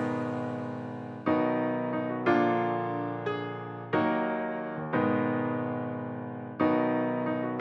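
Background music: slow piano chords, each struck and left to fade before the next.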